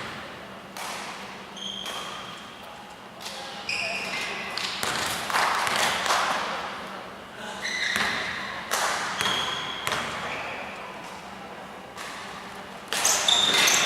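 Basketball game on an indoor court. The ball thuds as it bounces, sneakers squeak in short high chirps, and players call out in a reverberant hall. The voices grow louder about a second before the end.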